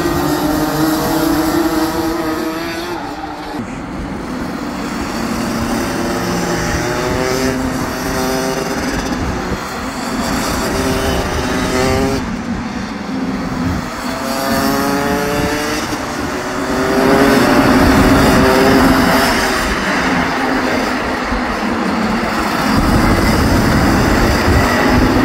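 Several Rotax two-stroke racing karts coming through a corner one after another, each engine note rising in pitch as it accelerates out, overlapping into a dense buzz when the pack passes closest.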